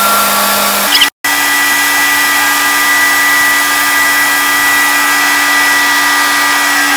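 Airless paint spray gun spraying paint onto a steel beam: a loud, steady hiss with a steady machine hum beneath it. The sound cuts out completely for a moment about a second in, then resumes with the hum at a slightly different pitch.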